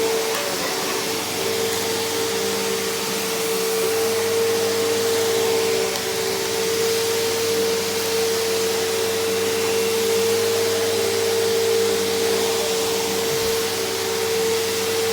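Bissell CleanView PowerTrack Deluxe upright vacuum cleaner running steadily: a constant motor whine over an even rush of air.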